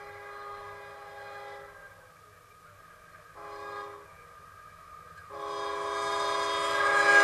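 Horn of Union Pacific locomotive 7698 sounding a chord of several tones as the train approaches. A long blast ends about a second and a half in, a short blast follows near the middle, then a long blast begins and grows steadily louder: the long, long, short, long signal for a grade crossing.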